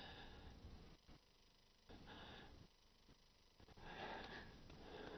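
Near silence: quiet room tone with a few faint breaths.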